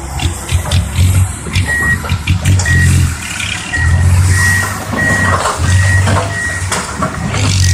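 A vehicle back-up alarm beeping at an even pace, about once every two-thirds of a second, starting a couple of seconds in. Under it the heavy diesel engines of earthmoving machinery run, rising and falling.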